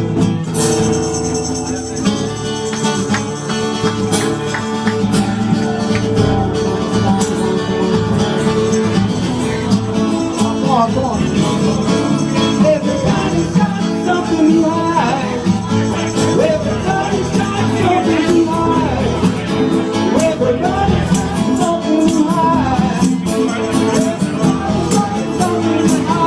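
Music playing: a song with singing over a steady accompaniment.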